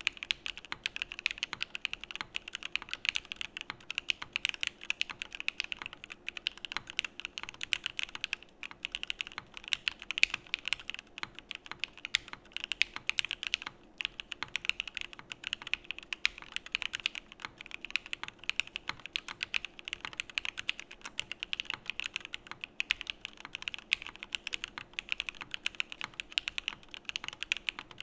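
Continuous fast typing on a Geonworks Frog mechanical keyboard with lubed Alpaca v2 linear switches on an aluminum plate: a dense run of keystroke clacks, with brief pauses about eight and a half and fourteen seconds in.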